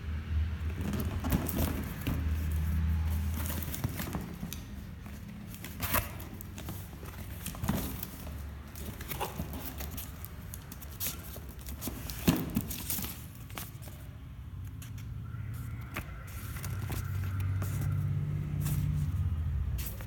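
Scattered clicks and rustling of small objects being handled, over a low, wavering hum.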